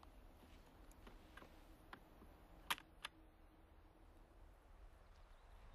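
Near silence: faint outdoor ambience with a low hum and a few brief, faint clicks, the sharpest a little past halfway.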